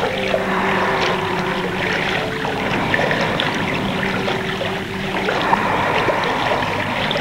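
Water trickling and splashing as a sea sound effect, with a few low held notes underneath that step to new pitches now and then.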